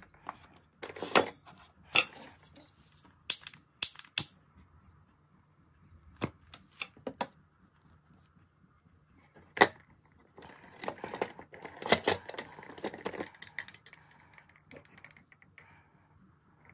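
Intermittent sharp clicks and knocks of hard objects: a few scattered ones in the first four seconds, a single loud one near the middle, and a busier stretch of clatter a little later.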